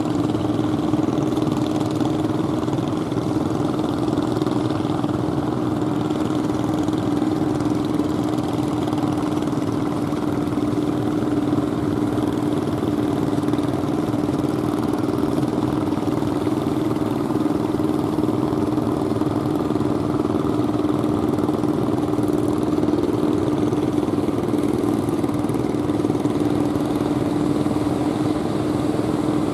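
An engine running steadily at one unchanging pitch, a constant drone over a wash of surf noise.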